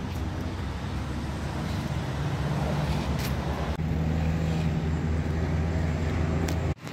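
Steady low motor hum, like engines or machinery running outdoors, with a few faint clicks. It changes abruptly and grows a little louder just under four seconds in, and briefly drops out near the end.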